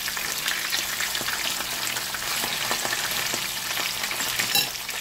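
Whole fish frying in hot oil in a pan: a steady, dense sizzle full of small crackling pops. A short, sharper sound stands out near the end.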